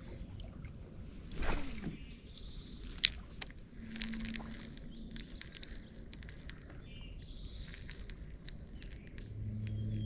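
Faint handling sounds of a spinning rod and reel being cast and worked from a kayak: a swish about a second and a half in, a sharp click about three seconds in, then scattered soft ticks.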